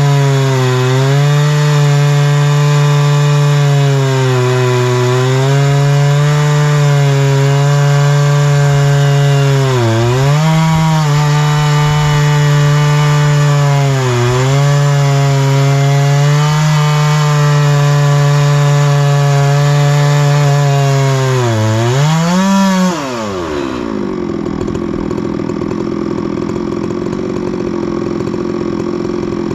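Chainsaw mill ripping a tamarack log, the saw engine held at full throttle and sagging in pitch a few times as the cut loads it. About 23 seconds in the throttle is released, the pitch falls away, and the saw settles to idle.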